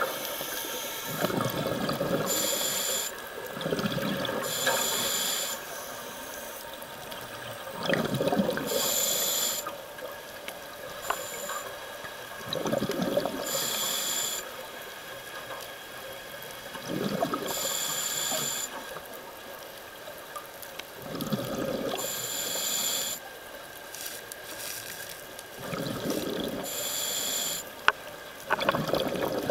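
A scuba diver breathing through a regulator underwater: a hiss on each breath in and a rush of bubbles on each breath out, repeating steadily about every four to five seconds, some six or seven breaths in all.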